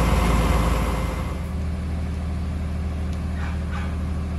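A loud engine runs with a wide rushing noise, then drops away about a second in to a steady, lower engine idle hum.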